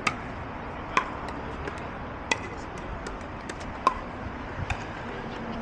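Pickleball paddles hitting a plastic ball in a rally: four sharp pops spread over about four seconds, with fainter pops from other courts.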